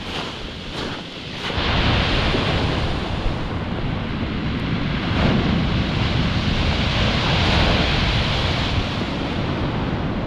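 Sea surf breaking and washing up a shingle beach, with wind buffeting the microphone. About a second and a half in, the wind rumble comes in and stays louder from then on.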